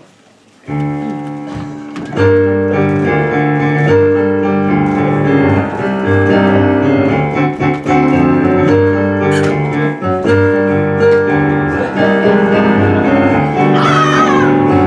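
Live piano playing a passage of held chords and moving notes, starting about a second in and growing louder at about two seconds.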